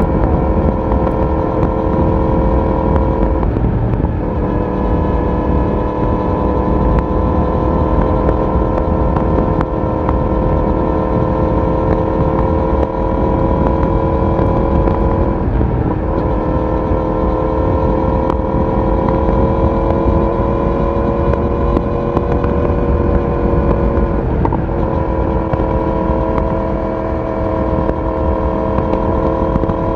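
Yamaha YZF-R1 inline-four engine and exhaust under steady, gentle acceleration, its pitch slowly rising in each gear, with three brief breaks for gear changes about 4, 16 and 25 seconds in. Wind rushes over the microphone underneath.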